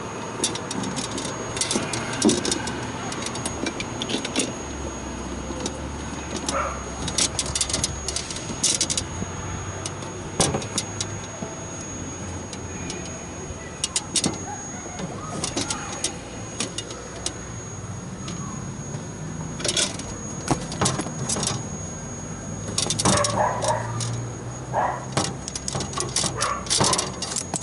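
Irregular metallic clicks and rattles from refrigerant hose fittings and tools being handled, over a steady low hum.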